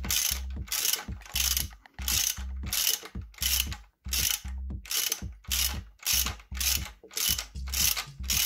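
Ratchet wrench swung back and forth in short strokes, its pawl clicking in a quick burst about twice a second as it runs a bolt down into the engine.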